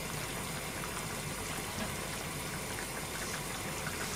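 Steady watery hiss of pots heating and simmering on a stovetop, with faint small ticks scattered through it.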